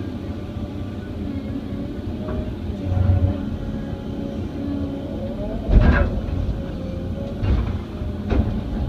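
Excavator's diesel engine working under load with a steady hydraulic whine, while loading clay into a scraper pan; a heavy thump about six seconds in and a sharper knock near the end.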